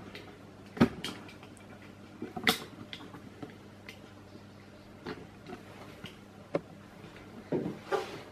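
Handling noise: scattered knocks and clunks, about half a dozen, the sharpest right at the start and another about a second in, over a faint steady hum, as a handheld camera is moved about and set up.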